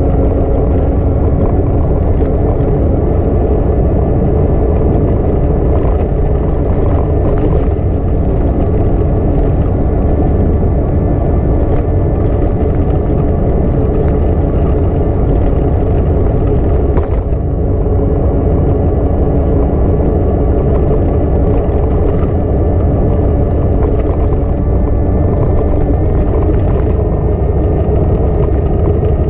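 Steady, loud wind rumble on a moving action camera's microphone, with a steady low hum underneath.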